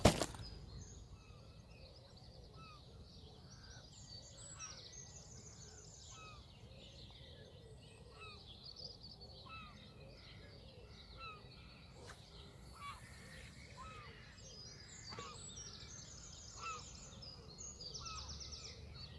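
Small birds singing: a mix of short chirps, repeated little downslurred notes and quick high trills, faint over a low outdoor background. A single sharp click at the very start is the loudest sound.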